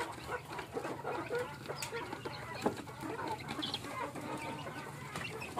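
Domestic chickens clucking, with many short scattered calls. There is a sharp knock about two and a half seconds in.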